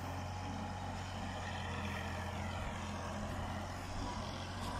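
New Holland Ghazi 480 tractor's diesel engine running steadily under load as it pulls a loaded trolley, heard from a distance as an even low hum.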